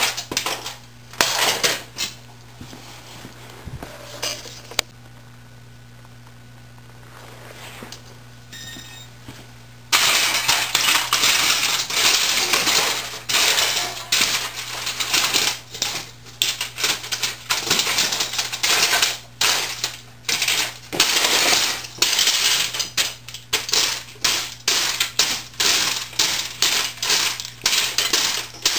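Heavy Wesco leather boots stomping and grinding on the smashed remains of a 1980s word processor: plastic casing, keyboard keys and metal parts cracking, crunching and clattering. A few stomps at first, a quieter stretch, then about ten seconds in a steady run of crunching, several sharp hits a second.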